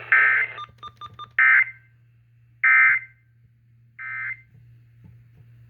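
Emergency Alert System end-of-message data bursts played over a radio: four short, harsh digital bursts about 1.3 seconds apart, marking the end of the severe thunderstorm warning. Quick faint beeping ticks sit under the first burst.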